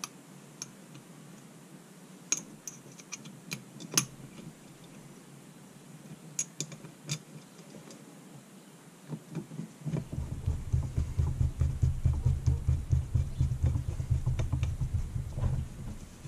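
Small metal parts of an ATV carburetor clicking and tapping as its vacuum-chamber top cover and screws are handled and fitted. About ten seconds in, a low, fluttering rumble of close handling noise starts and lasts about five seconds.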